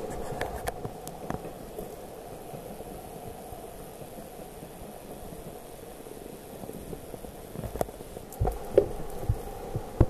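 Faint, steady hum of a two-car Kiha diesel railcar train running along the valley floor far below. A few low thumps come near the end.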